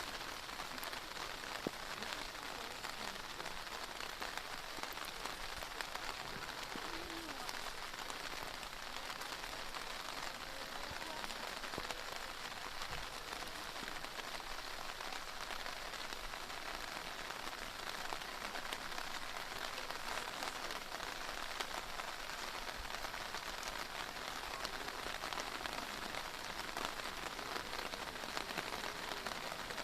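Heavy rain falling steadily in a downpour, with scattered sharp drips standing out from the even rush.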